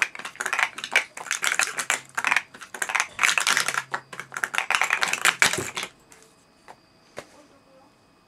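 Plastic speed-stacking cups clattering rapidly as they are stacked and unstacked on a mat during a timed mini cycle. The fast clicking stops about six seconds in, leaving a couple of single cup clicks.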